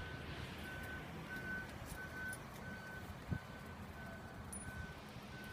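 A vehicle reversing alarm beeping steadily at about one and a half beeps a second, over a low rumble. There is one short thud about three seconds in.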